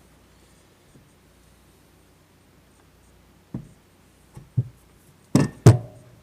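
Metal parts knocking and clinking as they are handled during axle reassembly: a few light knocks, then two sharper knocks close together near the end, the second ringing briefly.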